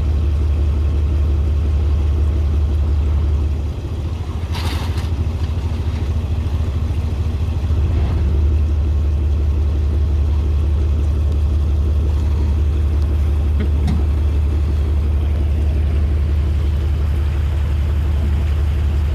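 Four-wheel drive's engine running with a steady low drone. It eases off for a few seconds from about four seconds in, with a short rattle about five seconds in.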